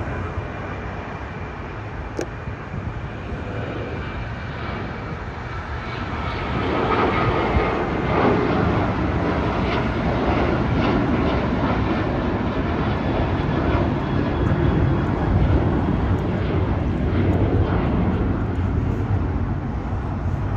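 Jet engines of a Delta Boeing 737 at takeoff thrust as it lifts off and climbs out: a steady rushing engine noise that swells noticeably about six seconds in and stays loud.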